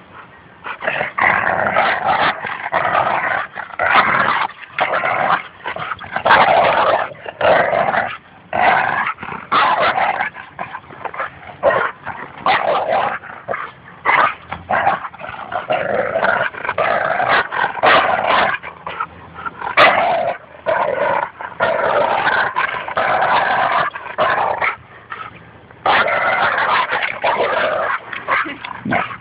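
Labrador Retriever growling during a rope tug-of-war, play growls rather than aggression, in long bouts broken by short pauses.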